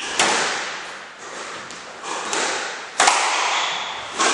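Squash rally: the ball is struck by racquets and smacks off the court walls, several sharp cracks about a second apart, each echoing in the enclosed court. The loudest hit comes about three seconds in.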